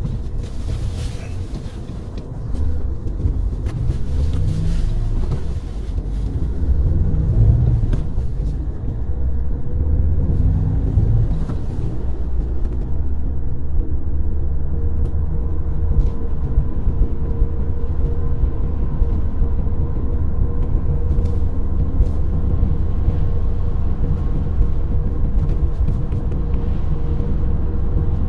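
Car driving along a snow-covered road: a steady low rumble of engine and tyres, the engine note shifting up and down a few times in the first ten seconds before settling into an even drone.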